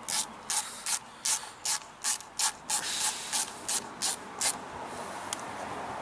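Hand ratchet clicking in short, even strokes, about a dozen at roughly three a second, as a bolt is run in on the generator; the clicking stops about four and a half seconds in.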